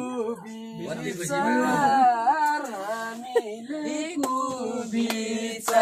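Unaccompanied singing of a Nepali song, a voice holding and bending long notes, with a few sharp clicks in the second half.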